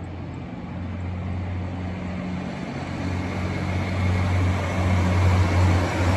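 Diesel engines of a KiHa 261 series 5000 limited express railcar train running past: a steady low engine hum with a rushing noise, growing louder and peaking near the end.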